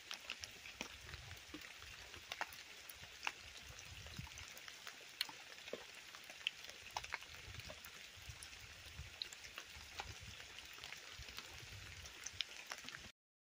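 Rain falling on wet leaves, ground and a muddy runoff rivulet: a faint steady hiss full of scattered sharp drop ticks, cutting off abruptly near the end.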